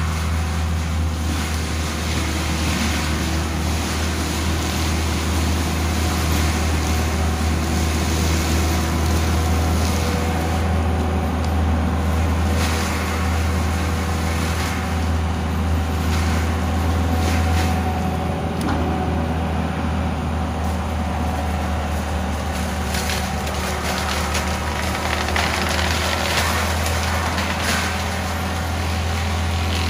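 CAT 299D3 compact track loader's diesel engine running steadily under load, with its CIMAF mulcher head spinning into brush and scattered cracks of wood being chewed up.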